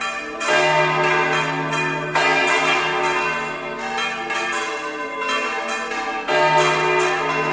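Church tower bells being swung full circle (volteo), several bells striking in turn with long, overlapping ringing. A deep bell strikes about half a second in and again about six seconds in, with another loud strike about two seconds in.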